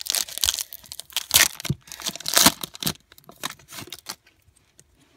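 Foil wrapper of a trading-card pack being torn open and crinkled by hand: a run of irregular rips and rustles, the loudest about one and a half and two and a half seconds in, dying away after about four seconds.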